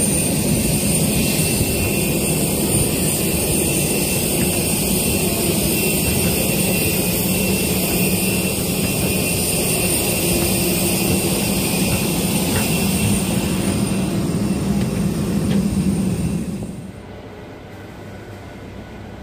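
Jet airliner noise: a steady loud rumble with high, even whining tones. Near the end it drops away sharply to a much quieter rumble.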